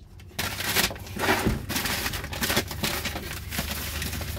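Brown paper being crumpled and rustled as it is stuffed into a plastic tub, a dense run of crackling that starts about half a second in.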